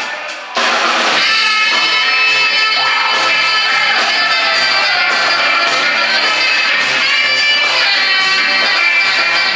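Live funk band playing, with electric guitar, bass and drums. The band drops out for a moment at the start and comes back in about half a second in.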